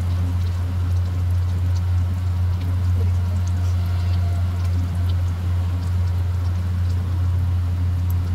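Cutlets frying in hot oil in a kadhai: a steady sizzle with a few faint pops. Under it runs a loud, steady low hum.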